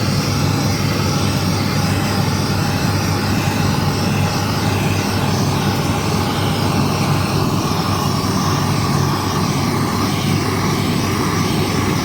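A machine running with a steady loud drone and a constant low hum, unchanging throughout.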